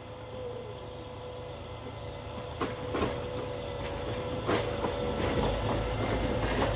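Log truck's knuckle-boom loader working: its diesel engine runs with a steady whine over it, the rumble growing louder about five seconds in, and a few sharp knocks sound along the way.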